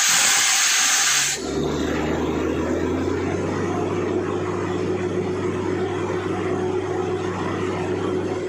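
A loud blast of hissing air that cuts off suddenly about a second and a half in, then the truck-mounted borewell drilling rig's engine and air compressor running with a steady drone.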